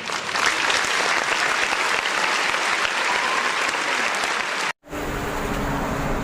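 Applause for about four and a half seconds, stopping abruptly. After a brief silence a different steady hum with one low tone starts.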